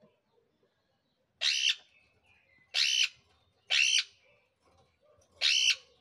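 Caged green parakeets squawking: four loud, harsh calls, each about a third of a second long and spaced a second or so apart.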